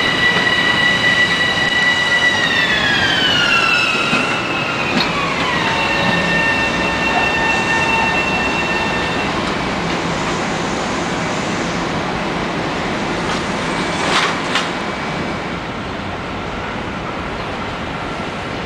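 Metro-North electric multiple-unit train pulling in at low speed: its traction motors give a whine of several tones that falls steadily in pitch over a few seconds as the train slows, over steady rolling wheel noise. Two short clanks come about two thirds of the way in.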